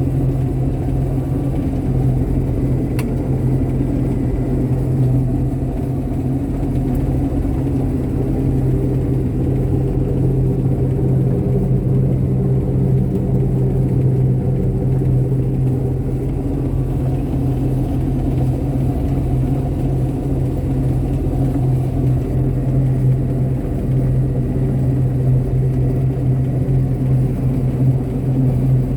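Heavy farm machine's engine running at a steady speed, a continuous low rumble.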